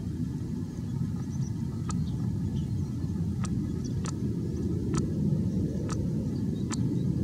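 Steady low rumble on a handheld compact camera's built-in microphone, with faint sharp ticks about once a second.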